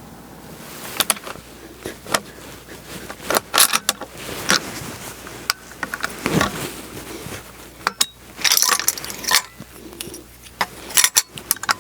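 Gear being handled: irregular clicks, clinks and rustling, with a few short scrapes.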